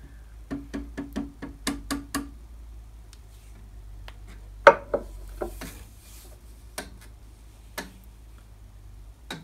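Light taps on a steel linear guide rail to nudge it into alignment: a quick run of about five taps a second, each with a short ringing note, then a louder knock near the middle followed by a few scattered clicks, over a low steady hum.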